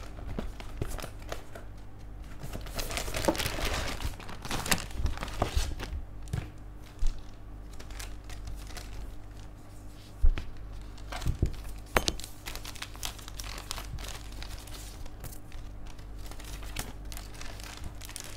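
Clear plastic bags of model-kit parts and the cardboard box crinkling and rustling as they are handled and unpacked, in irregular bursts that are busiest a few seconds in. A few sharp clicks and taps stand out around the middle.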